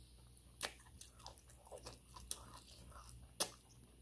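A person chewing a mouthful of egusi soup eaten by hand, recorded close to the mouth, with several sharp mouth clicks. The loudest click comes about three and a half seconds in.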